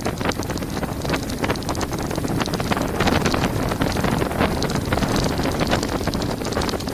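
Wind buffeting the microphone over the dense clatter of a mountain bike's tyres and frame rattling over loose gravel on a fast descent, getting louder in the first couple of seconds.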